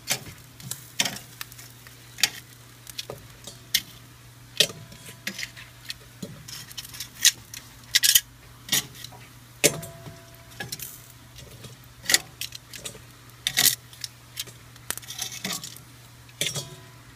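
Metal tongs clicking and clinking against a charcoal kettle grill's grate and a pan as smoked chicken wings are lifted off: irregular sharp clinks, some ringing briefly, over a steady low hum.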